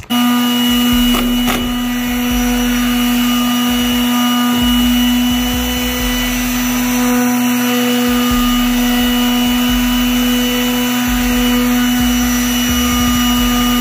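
Electric square-pad palm sander running steadily as it sands a wooden bar top: an even motor hum over the hiss of sandpaper on wood.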